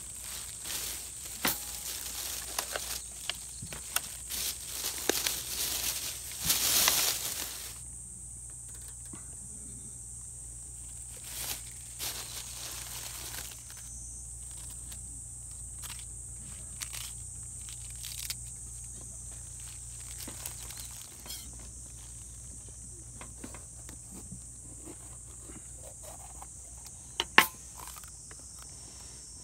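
Plastic bag crinkling and rustling as a head of cabbage is unwrapped and handled, loudest about seven seconds in. Then come scattered light clicks and taps of vegetables being handled, and one sharp crack near the end. A steady high insect drone runs underneath.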